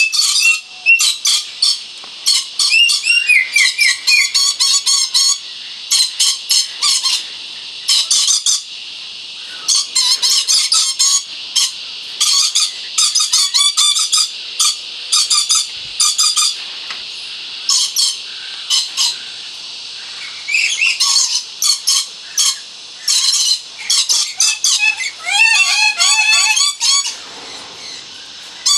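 Moluccan red lories (Eos bornea) screeching: clusters of short, shrill calls in quick succession, broken by brief pauses.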